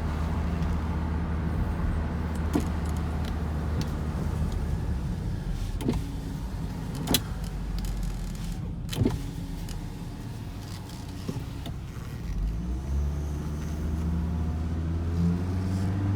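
Volvo XC90's 2.5-litre turbocharged five-cylinder engine and exhaust running on a drive, heard through an open door: a steady low drone with no loud exhaust-leak noise from the newly fitted catalytic converters. A few sharp clicks come through, and the engine note shifts about twelve seconds in.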